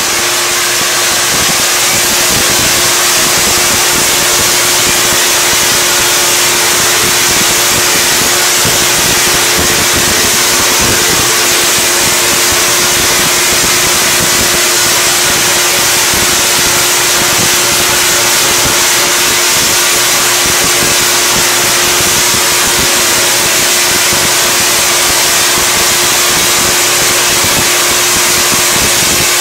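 Half-wave Tesla coil, driven by a 10 kVA pole transformer, firing continuously: a 50-inch spark arcs between its two toroids with a loud, steady, crackling buzz and a constant pitched tone running through it.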